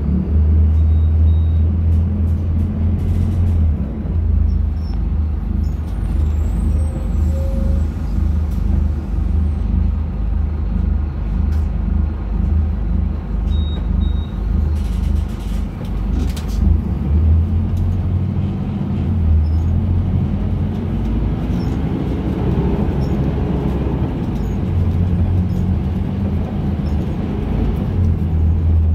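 Scania K250UB bus's diesel engine heard from inside the cabin, idling with a steady low drone while the bus stands at a stop. About halfway through there are brief sharp hisses and knocks of air, and later the engine note rises in pitch for a few seconds as the bus pulls away, then settles back to a low drone.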